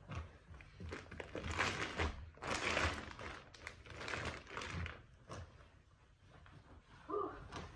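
Mattress packaging being handled: crinkling and rustling in uneven bursts, loudest about one and a half to three seconds in, with a few soft thumps.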